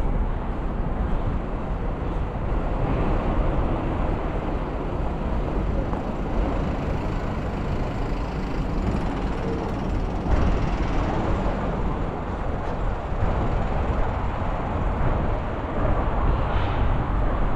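City street ambience: road traffic on the street alongside, a steady wash of noise with no distinct events.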